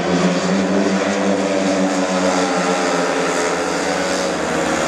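Several speedway motorcycles racing, their 500cc single-cylinder methanol engines running hard in a steady, continuous drone, several engine pitches overlapping.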